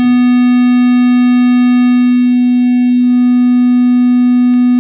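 Steady synthesized sine-wave note, about 240 Hz, passed through the Wolf Shaper waveshaping distortion plug-in. It starts abruptly and holds one unchanging pitch, with a row of faint overtones added by the shaping curve. A couple of faint clicks come near the end.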